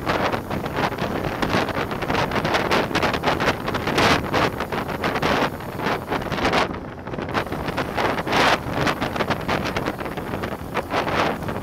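Wind buffeting a bike-mounted camera's microphone while riding a road bike downhill at about 20 to 30 km/h, a rough, fluttering rush that eases briefly about seven seconds in.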